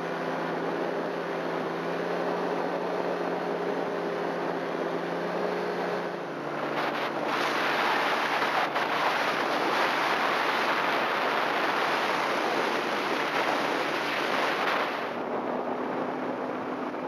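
Paramotor engine and propeller running steadily in flight, a steady hum of several tones. From about six seconds in a louder rushing noise drowns the engine tone for about nine seconds, then the hum comes back.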